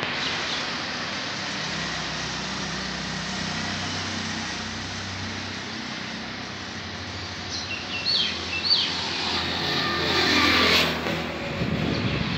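Street traffic noise, with a motor vehicle's engine hum growing and passing loudest about ten seconds in, and birds chirping a few times.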